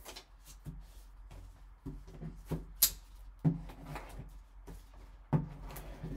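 Plastic wrapping crinkling and a cardboard trading-card box being handled as it is unwrapped and opened and a sealed pack taken out, with a few sharp clicks and taps, the loudest about three seconds in.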